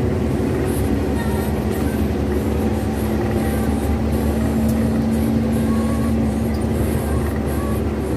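Intercity bus under way, heard from inside: steady engine drone and road noise with a constant hum.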